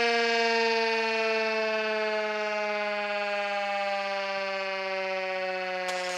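Federal Signal 2001-130 mechanical warning siren winding down: one steady tone slowly falling in pitch and fading. A brief faint rustle comes near the end.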